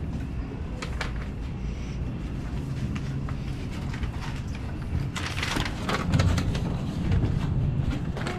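Wind rumbling on the microphone, with footsteps knocking and clanking on a steel ship's ladder. A few knocks come about a second in, and a louder run of clatter comes from about five to six and a half seconds in.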